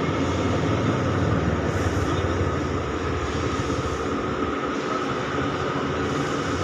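Wanderer thread milling machine running steadily, an even mechanical noise with faint steady tones.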